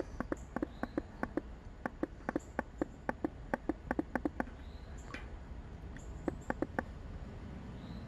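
Irregular light clicking of a tin 3-in-1 household oil can being squeezed to drip oil into the oil port of an AC condenser fan motor, several clicks a second, thinning out after the halfway mark.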